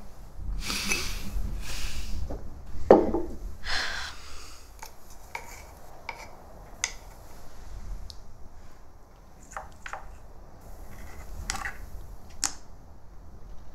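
Small shells tapping and clicking on a tray as they are picked at and placed with a fine tool: scattered light ticks. In the first few seconds there is louder handling, rustling and a knock.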